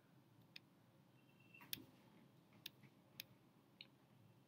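Near silence broken by about five faint, sharp clicks at uneven intervals, the loudest a little under two seconds in.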